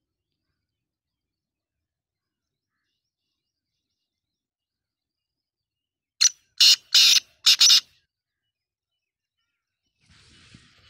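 Black francolin calling: one loud, harsh call of four quick notes, about six seconds in.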